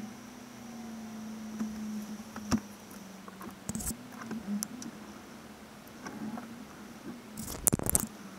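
Steady low hum inside a vehicle, with scattered taps and clicks and a cluster of loud knocks near the end.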